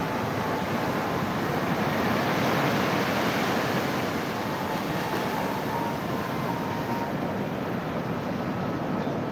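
Sea surf washing onto a sandy beach: a steady rush of waves that swells a little two to three seconds in.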